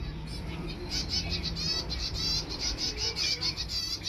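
A flock of finches, mostly zebra finches, chirping busily, with many short calls overlapping in quick succession.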